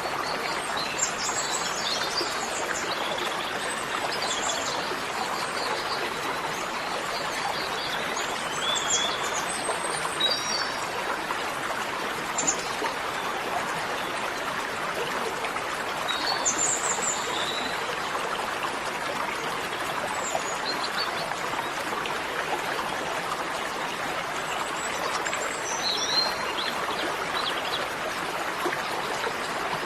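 Steady rushing of flowing water, with birds chirping now and then throughout.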